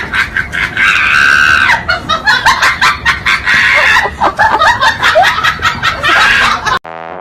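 Shrill, rapid laughing and screaming voices, likely dubbed onto the comedy track. They stop abruptly near the end, giving way to a brief steady tone.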